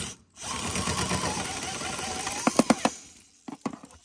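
A power wrench running steadily for about two and a half seconds, spinning the rear camber arm's mounting bolt out through a long extension, followed by a few sharp metallic clicks near the end as the bolt comes loose.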